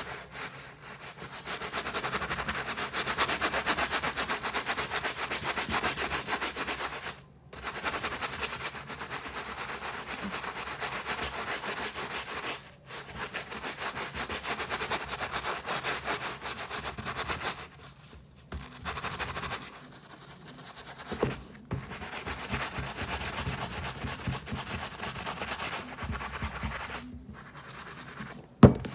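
Brush scrubbing the rubber soles of a pair of sneakers with cleaning solution, in fast back-and-forth strokes that stop briefly several times. A single sharp knock near the end.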